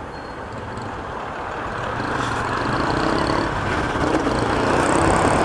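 Motorcycle riding in traffic: engine running with road and wind noise, growing steadily louder over the few seconds.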